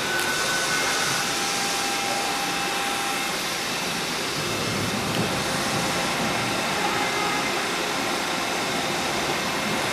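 Mazak Integrex 400-III ST CNC turning center running a machining cycle behind its closed enclosure, coolant spraying onto the part: a steady rushing hiss with faint thin whines in the first few seconds.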